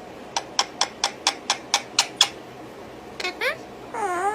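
Pet parrots, an Indian ringneck parakeet with cockatiel chicks, calling. A quick run of about nine short, sharp chirps comes at roughly four a second, then a brief rising call, and near the end a whistled call that dips in pitch and rises again.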